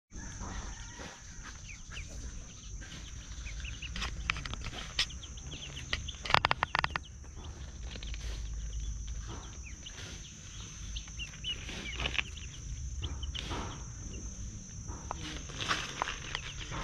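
Young poultry chicks peeping, many short high cheeps scattered throughout, over a steady high whine. A brief flurry of sharp clicks about six seconds in.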